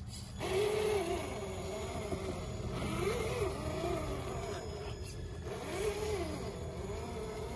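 Traxxas TRX-4 2021 Ford Bronco RC crawler's electric motor and gearbox whining in about four short throttle bursts, the pitch rising and falling each time as it crawls over dirt and roots.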